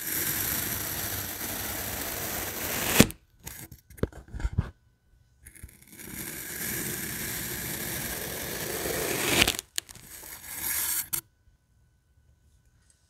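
Knife blades slicing down through a block of kinetic sand: two long, steady hissing cuts of about three and four seconds, each ending in a sharp tap, with shorter crumbling sounds between them.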